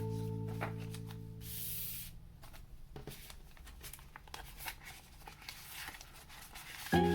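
A plucked-string chord of background music fades out. About a second and a half in there is a short rustle or tear of paper or plastic packaging, followed by faint handling clicks and rustles. Music starts again at the very end.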